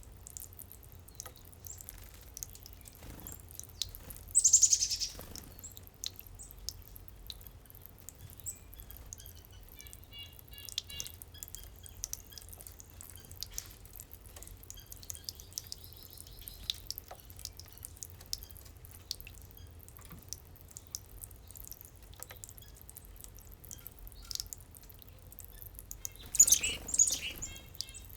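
Backyard garden fountain dripping and trickling throughout, with songbird calls over it: one loud harsh call about four seconds in, soft repeated chirps in the middle, and a loud burst of calls near the end.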